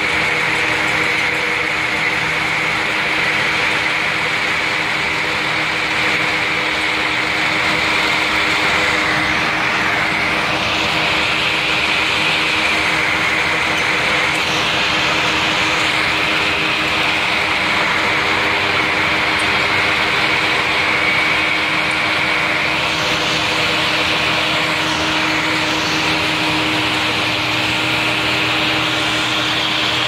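Case IH 7088 Axial-Flow combine running under load while cutting soybeans: a steady engine and threshing-machinery sound with a high whine over it, passing close by.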